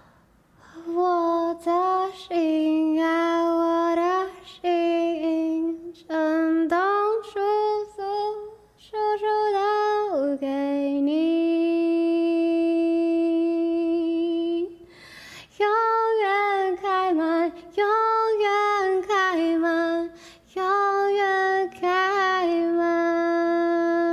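A single high voice singing unaccompanied, in short phrases and long held notes, with one long held note from about 11 to 15 seconds in and another near the end.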